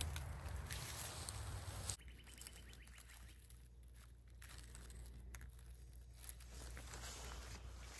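Footsteps and light rustling on a trail outdoors, with a low wind rumble on the microphone. The sound drops abruptly to a quieter bed about two seconds in.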